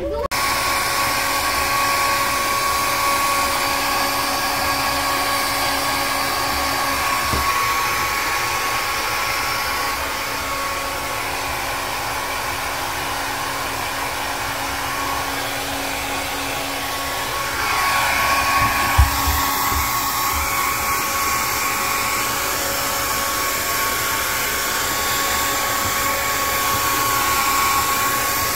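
Hand-held hair dryer running steadily, blowing air onto a wet border collie's coat: a constant rush of air with a steady motor whine. It eases off a little for several seconds in the middle, then comes back louder, with one brief knock about nineteen seconds in.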